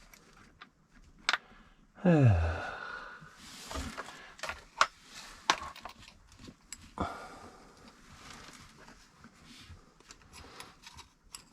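A man's long, falling groan of frustration about two seconds in, then breathing and a scatter of light clicks and knocks.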